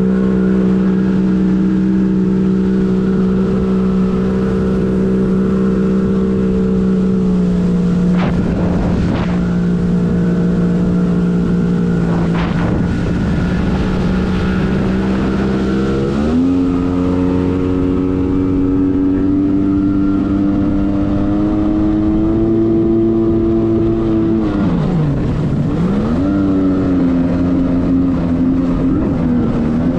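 1997 Arctic Cat TigerShark Monte Carlo 1000 personal watercraft's two-stroke engine running under way at steady throttle. The pitch steps up about halfway, then drops sharply and climbs back near the end as the throttle is let off and reapplied. Two brief rushes of noise come about a third of the way in.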